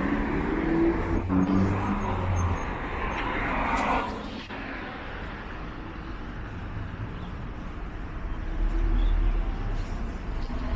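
Street traffic: cars passing, with a low engine rumble building near the end as a vehicle approaches.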